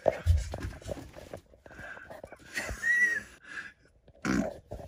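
A man's non-speech vocal sounds: strained breaths, grunts and snorts, with a brief high-pitched sound about three seconds in.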